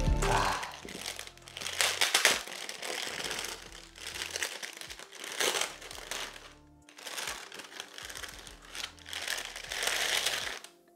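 Clear plastic packaging bag crinkling in irregular bursts as a camera body is unwrapped by hand, with quiet background music underneath.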